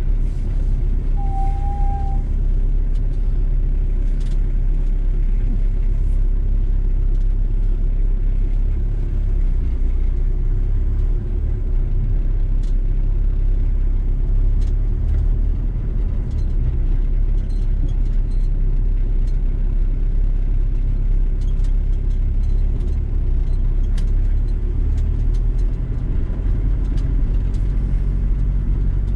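Steady low engine and road rumble heard from inside a VW T4 campervan as it drives, with a brief thin tone about a second and a half in.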